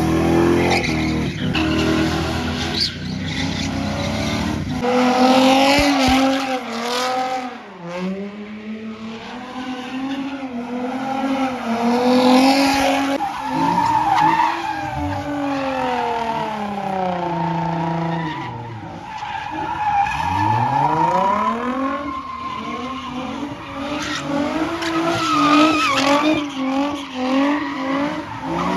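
A car's engine revving hard, its pitch climbing and dropping again and again, over the continuous screech of tyres sliding as the car spins donuts.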